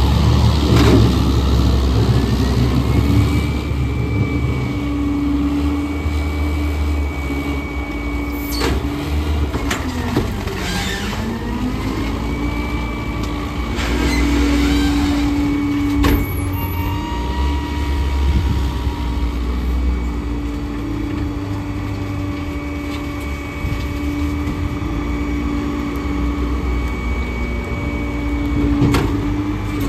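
Garbage truck's diesel engine running at a raised idle with a high whine riding on it. The engine speed drops and climbs back up about ten seconds in, and falls again near the end, with a few sharp knocks scattered through.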